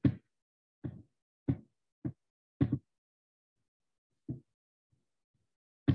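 Computer mouse clicking: about seven short, separate clicks at irregular intervals.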